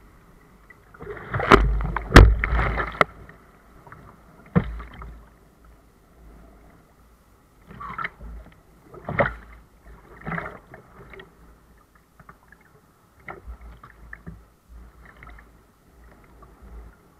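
Water splashing and slapping against a plastic sea kayak's hull and deck as it is paddled through choppy sea, in irregular bursts, loudest in the first few seconds.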